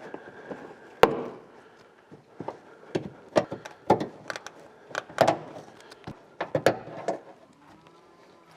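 Plastic push clips on a Honda Accord's trunk-lid trim being pried out with a plastic trim tool: a string of sharp clicks and knocks, the loudest about a second in.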